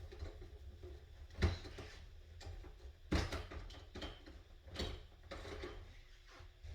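Pneumatic stapler firing staples into a chair seat: a few sharp clicks, three louder ones about a second and a half apart, some with a short hiss after.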